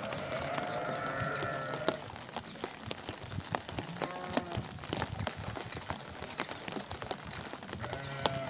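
Sheep bleating: one long bleat that ends about two seconds in, a short one about four seconds in and another starting near the end, over scattered clicks and knocks.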